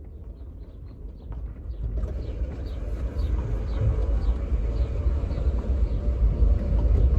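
Low vehicle rumble and rolling noise building steadily as the long-parked RX-7 gets moving. A faint short chirp repeats about twice a second.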